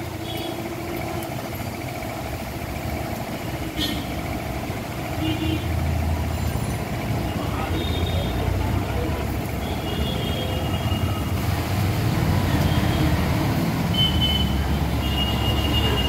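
Steady low rumble of vehicle traffic that grows louder in the second half, with a few short high-pitched tones and faint voices in the background.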